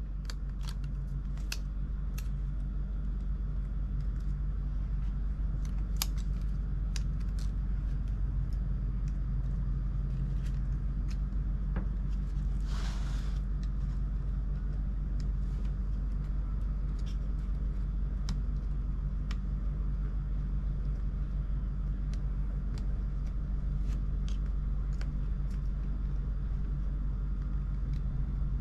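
Small repair tools clicking and tapping against laptop parts, with a brief scraping rustle about halfway through, over a steady low hum.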